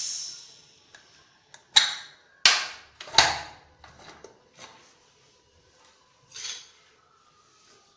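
Anantha Induce aluminium pressure cooker letting out leftover steam as its weight is lifted, a hiss that dies away within the first second. Then come a few sharp metallic clanks as the lid is unlocked and lifted off, and a short scrape a few seconds later.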